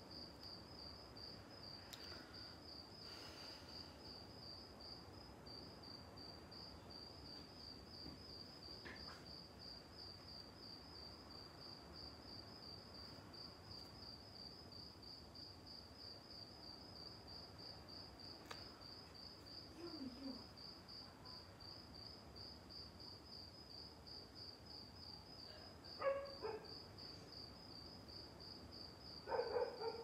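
Cricket chirping steadily: an unbroken run of evenly spaced high chirps at one pitch. A few faint clicks and a couple of brief soft sounds near the end.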